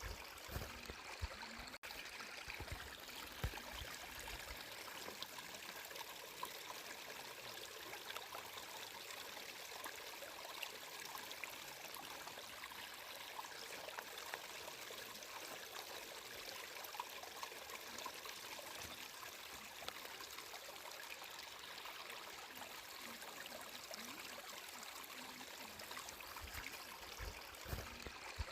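A stream of water flowing and trickling steadily, an even rushing hiss, with a few soft low thumps in the first few seconds and again near the end.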